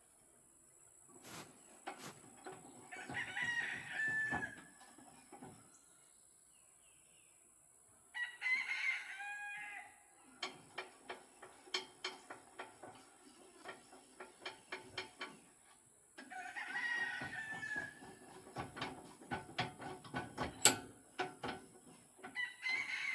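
Rooster crowing repeatedly, about four crows of a second or two each, with a run of short sharp clicks and taps in between.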